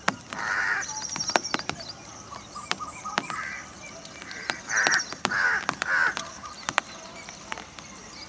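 A crow cawing, about five harsh caws spread through the first six seconds, with a small bird's high chirps and scattered sharp clicks.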